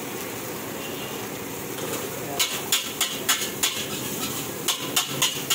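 Metal ladle striking and scraping an iron wok while fried rice is stir-fried. A steady rushing noise at first, then, from about two and a half seconds in, sharp clanks about three a second.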